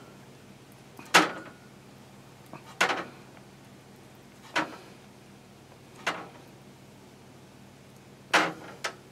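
Short scraping and tapping handling sounds, six in all, roughly one every one and a half seconds, as heat-shrink tubing is worked along braided cable sleeving on an LED module's wires.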